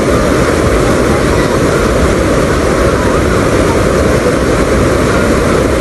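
Waterfall pouring into a river pool: a loud, steady rush of water with no let-up.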